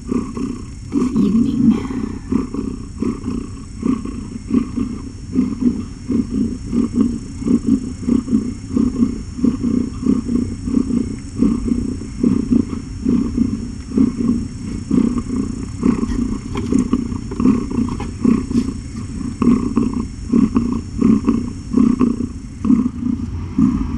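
Nursing mother cat purring loudly right at the microphone, a continuous low rumble that swells and fades in quick, even pulses.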